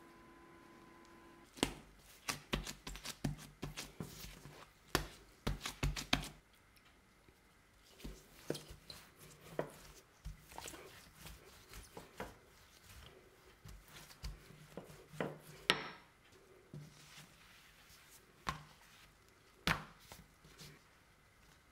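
Irregular sharp knocks on a kitchen work surface, typical of cutting or chopping on a board. They come in a fast run over the first few seconds, then scattered single strikes.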